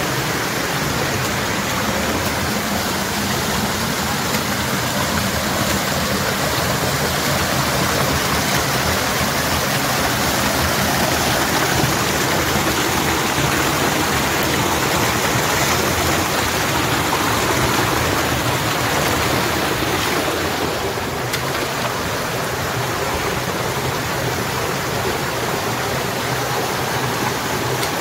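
Rushing water of a nearby stream and waterfall, a steady, even rush without breaks.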